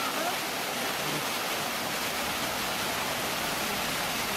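Steady rushing of water, an even hiss that holds without change.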